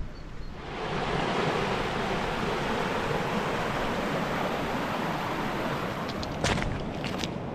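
Steady rush of a waterfall's falling water, starting abruptly about a second in, with a few sharp clicks near the end.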